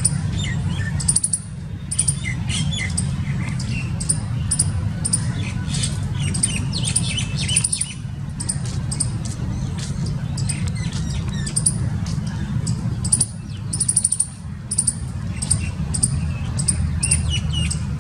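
A squirrel calling: quick runs of shrill, high chirps repeated again and again, with some lower chirping notes between, over a steady low rumble.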